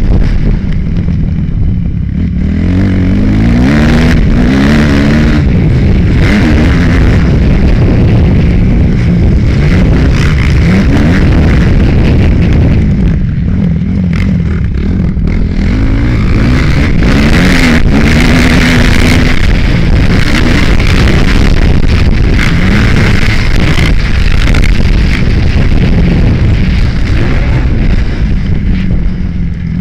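Kawasaki KX250F's four-stroke single-cylinder motocross engine revving hard, its pitch climbing and dropping again and again as the rider works through the gears, heard from the rider's helmet camera with heavy rushing noise.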